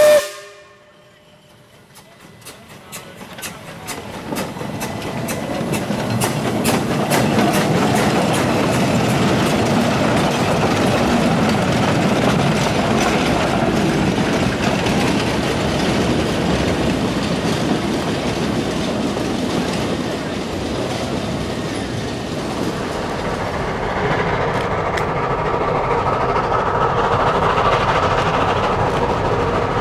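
Small steam train rolling past, its wheels clicking evenly over the rail joints as the cars go by. The sound builds up over the first several seconds into steady running noise, and changes near the end.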